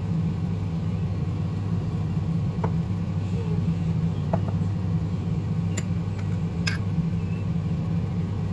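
Steady low machine hum, with a few faint light clicks scattered through it.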